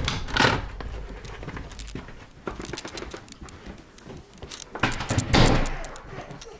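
Footsteps and camera handling noise while walking through a room, with a couple of louder scuffing sounds, one about half a second in and one about five seconds in.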